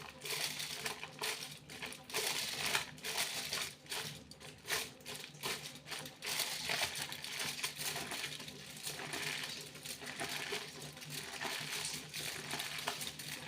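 Foil crinkling and crackling as it is handled, a continuous run of small sharp crackles.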